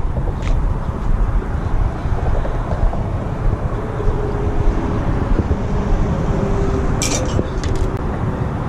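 Steady low outdoor rumble on the microphone, with a faint steady hum in the middle and a short run of sharp clicks about seven seconds in.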